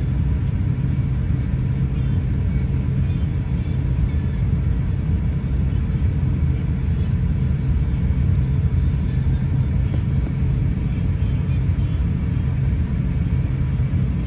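Steady low rumble inside the cabin of an Airbus A350-900 taxiing, with a faint steady hum from its Rolls-Royce Trent XWB engines at taxi power.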